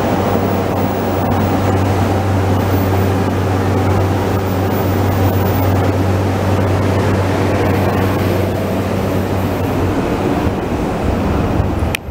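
Electric commuter train standing at a station platform: a steady low hum over a broad rumble. The hum fades about ten seconds in.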